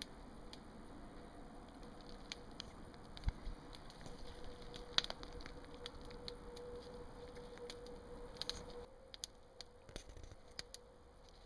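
Faint scattered snaps and rustles of someone stepping over twigs and leaf litter on a forest floor, with a few sharper cracks and a faint steady hum through the second half.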